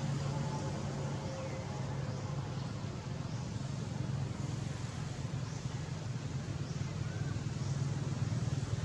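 Steady low hum under a constant outdoor hiss, with faint short high chirps recurring every second or so.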